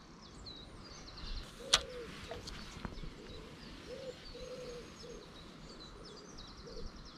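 Small birds chirping and singing faintly and steadily, with a few brief low notes. One sharp click about two seconds in is the loudest sound.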